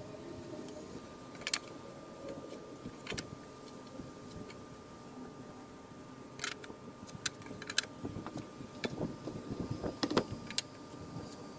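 Scattered light clicks and taps of a metal framing square being set against and moved along a wooden sill plate while the board is marked, busier in the second half. A faint steady thin tone runs underneath.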